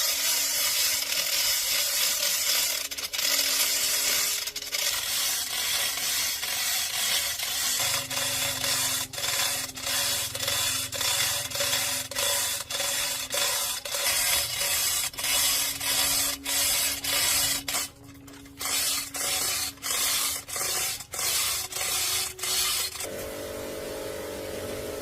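Abrasive rubbing on metal in repeated back-and-forth strokes, as in sanding or filing rust off a diesel engine part. The strokes come quicker and more clipped near the end and stop shortly before it.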